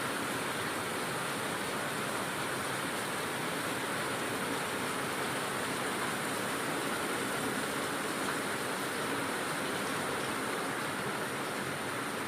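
Heavy rain pouring down, a steady unbroken hiss.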